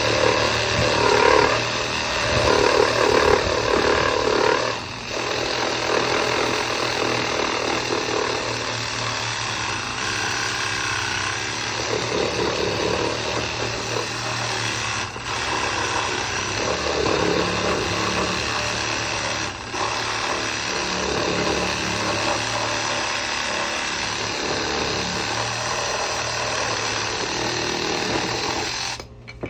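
Ronix 8305 reciprocating saw running steadily, with brief dips about 5, 15 and 20 seconds in, then cutting off abruptly near the end.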